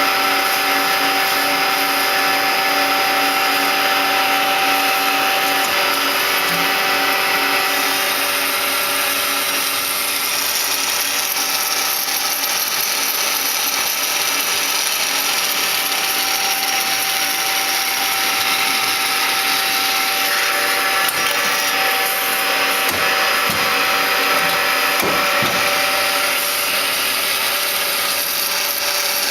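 DoALL C260A automatic horizontal bandsaw running under power: a steady machine whine made of several steady tones over a high hiss.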